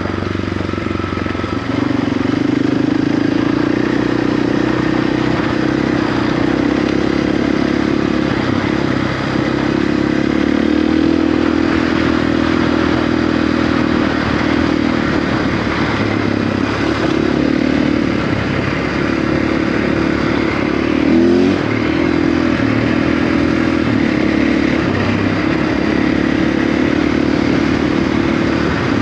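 Single-cylinder KTM 690-family dual-sport motorcycle engine running under way on a dirt trail, holding a steady pitch that shifts a little with the throttle, with a brief rise and fall in revs about two-thirds of the way through.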